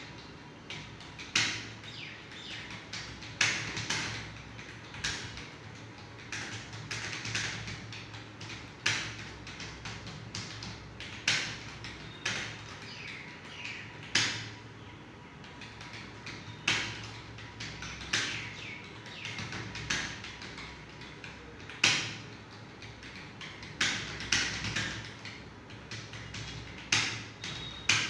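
Rapid touch-typing on a computer keyboard: a continuous patter of key clicks, with louder, sharper strikes every second or two.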